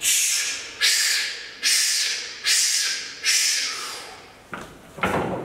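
A powerlifter takes rapid, forceful breaths while gripping the bar before a heavy deadlift. Each breath is a sharp hiss that starts suddenly and fades, five of them less than a second apart, with a louder rush of breath near the end.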